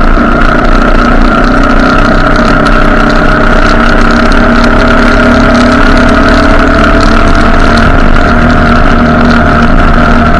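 Motorcycle engine running at a steady pace while riding, its pitch holding nearly level with a slight drift, over wind rushing on the microphone.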